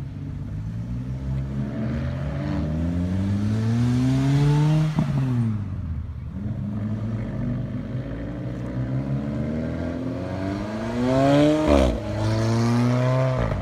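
Sports cars accelerating hard: first a Lotus, then an Alfa Romeo 4C with its turbocharged four-cylinder. Each time the engine note climbs steadily and then falls sharply, about five seconds in and again near the end.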